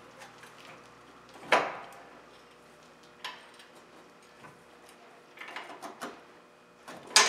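Metal knocks and clinks of a front strut being worked back and forth in the steering knuckle to line up the bolt holes: a sharp knock about a second and a half in, a lighter one at about three seconds, a run of small clinks around five to six seconds, and a loud cluster of knocks near the end.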